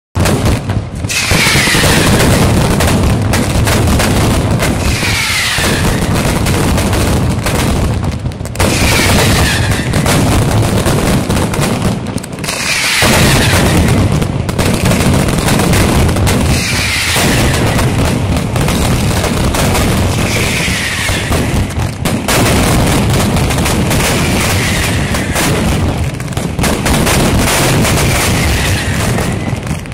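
Mascletà: strings of masclet firecrackers exploding at ground level in a dense, unbroken barrage of loud bangs.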